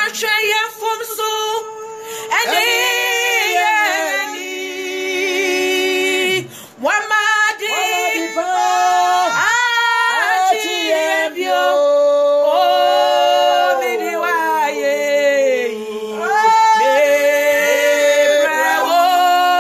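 Two women singing together, holding long notes with vibrato; the singing dips briefly about six and a half seconds in, then carries on.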